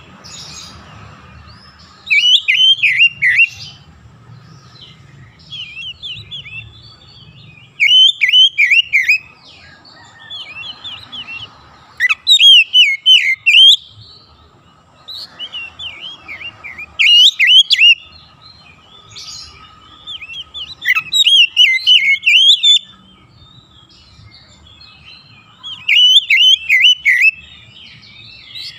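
Oriental magpie-robin singing: about eight loud phrases of rapid, sliding whistled notes, each one to two seconds long, coming every few seconds. A faint steady tone runs beneath.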